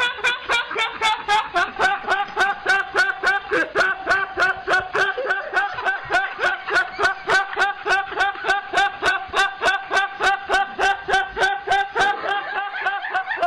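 A man laughing in a steady, unbroken run of 'ha' pulses, about three a second.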